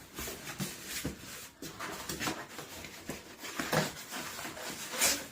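A knife slitting the packing tape on a cardboard shipping box while the box is handled: irregular scraping and rustling with light knocks, a louder knock about five seconds in.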